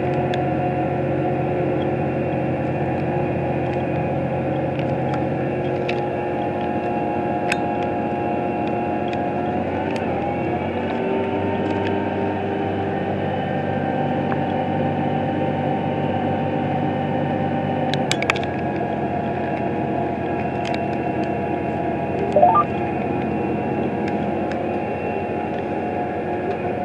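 Tractor running steadily under load while pulling a soybean planter, heard from inside the cab: an even engine hum made of several steady tones. The note steps up slightly about ten seconds in and drops back about eight seconds later, with a few faint clicks.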